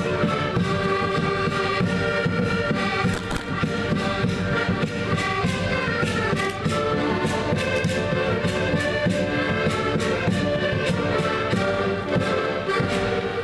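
A group of concertinas (Portuguese button accordions) playing a tune together, with a steady beat.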